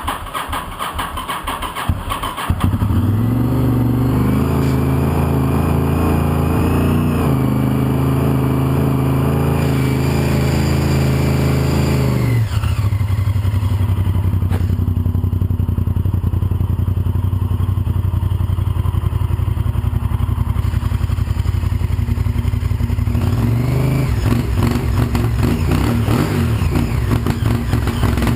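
Honda VTR1000F SuperHawk's 90° V-twin on its stock exhaust, running rich ("running fat"). It idles roughly for the first couple of seconds, then holds a raised, steady engine speed for about ten seconds, drops back to a lower idle, and rises briefly in revs near the end.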